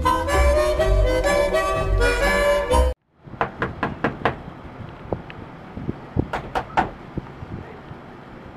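Background music that cuts off suddenly about three seconds in, followed by knocking on a door: a quick run of about five knocks, then three more a couple of seconds later and a single one near the end.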